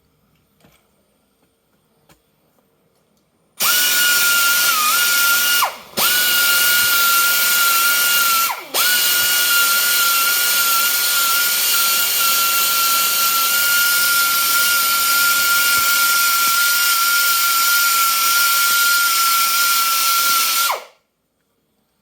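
Handheld electric grinder with a wire wheel or abrasive running against metal, cleaning up a spot that would not take a weld. It starts about three and a half seconds in with a steady high whine over a hiss, is let off twice for a moment, the whine dropping in pitch each time, and runs on until it stops shortly before the end.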